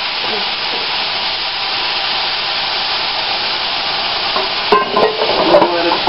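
Shredded beef and onions sizzling steadily as they fry crisp in a stainless steel skillet. Nearly five seconds in, a spatula starts scraping and clicking against the pan.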